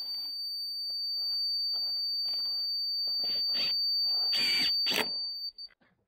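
Laser-level receiver on a grade rod sounding a steady high tone, the signal that the form board is right on grade, while a cordless drill driver runs in short bursts, driving 2.5-inch deck screws through the form board into its stake, louder toward the end. The sound cuts off about five and a half seconds in.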